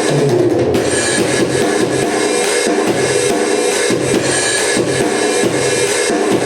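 Music: a Seven SD-7000 electronic drum kit played along with a backing track, with a steady run of drum hits over the backing music.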